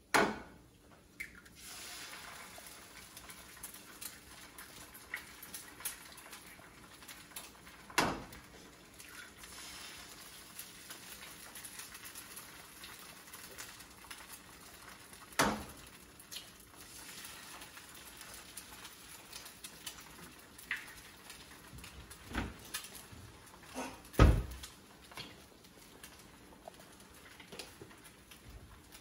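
Eggs and onions frying in a frying pan on a gas stove: a steady sizzle, broken now and then by a handful of sharp knocks as eggs are cracked against the pan.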